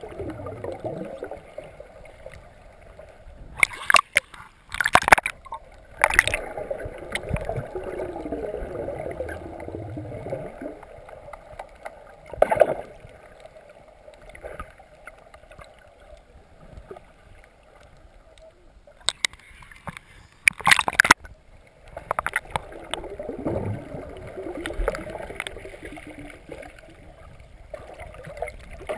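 Muffled underwater sound through a camera's waterproof housing: gurgling, bubbling water with sharp knocks now and then, several clustered about four to six seconds in and again about twenty seconds in.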